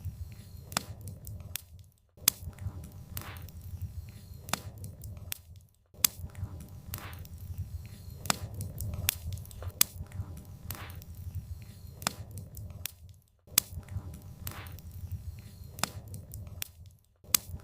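Wood fire burning, with irregular sharp pops and snaps of firewood over a low, steady rumble of flames. The sound cuts out briefly to near silence several times.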